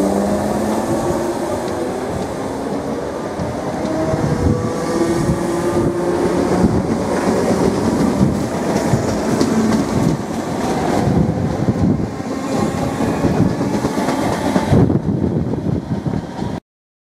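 Great Northern Class 313 electric multiple unit moving off along the platform, its traction motors giving a steady whine over the rumble of the cars, with wheels clicking over rail joints. The sound eases as the last car clears, then cuts off suddenly near the end.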